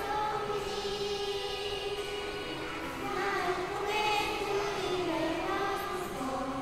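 A worship song: singing voices carrying a melody over musical accompaniment.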